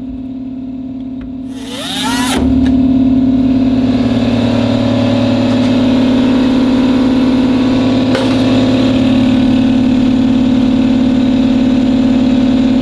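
Grinder with a cut-off disc running at a steady pitch, getting louder about two seconds in as the disc bites into and cuts through the Beetle's sheet-steel body at the driver's side heater channel.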